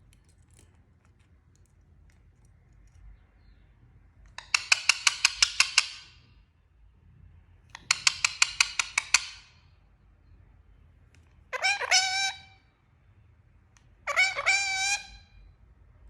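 Parrot calling four times: two loud, rapid stuttering bursts, then two shorter calls that bend in pitch.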